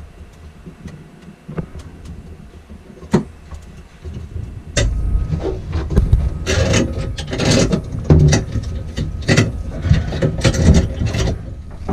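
A few light clicks, then from about five seconds in, repeated loud scraping and rubbing as the water maker's white plastic membrane housing is worked into its black mounting clamp.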